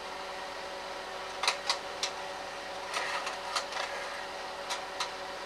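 Slide projector changing slides: a series of sharp clicks and clatters from the slide-change mechanism, over the steady hum of its cooling fan.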